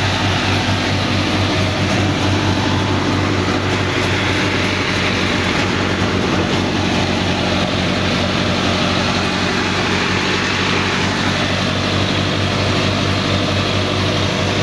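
Mahindra Arjun 605 DI tractor's four-cylinder diesel engine running steadily under load, driving a rear-mounted PTO banana mulcher. The mulcher's rotor churns through banana stalks and soil, giving a steady rushing clatter over the engine's low hum.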